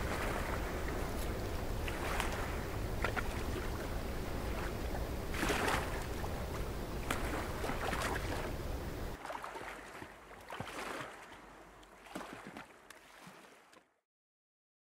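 Outdoor wind and lake water noise, with a low wind rumble and scattered splashing rises. It drops back about nine seconds in and fades to silence near the end.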